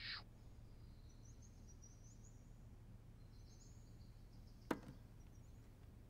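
Near silence: faint room tone, with one sharp click about three-quarters of the way through.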